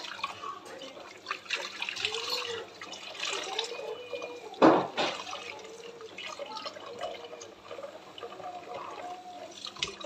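Kitchen tap running into a sink while a wet cloth is rinsed and wrung out and hands are washed under the stream, with splashing and dripping. A single louder splash or knock comes about halfway through.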